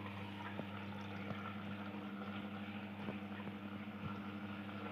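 Bosch front-loading washing machine's drain pump running with a steady low hum, pumping the water out during a spin-and-drain cycle, with a few faint ticks.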